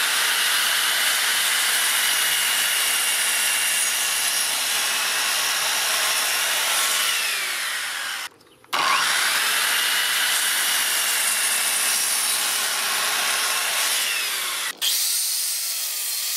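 Parkside PZKS 2000 B2 sliding compound mitre saw running and cutting through a wooden board, its motor whine dipping under load, with a brief break about eight seconds in. Near the end the sound eases and the motor's pitch falls.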